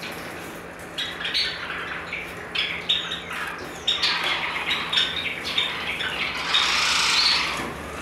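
A flock of Java sparrows calling with many short, sharp chip notes in quick succession. Near the end a louder rushing noise lasts about a second and a half.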